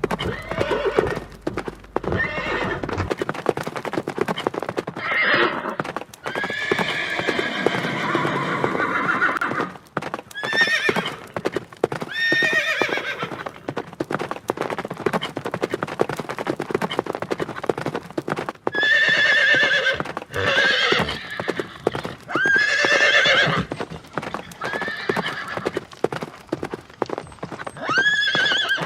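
Horses' hooves clopping steadily, with horses neighing repeatedly over them, about eight calls, one long one early on and a quick run of shorter ones in the second half.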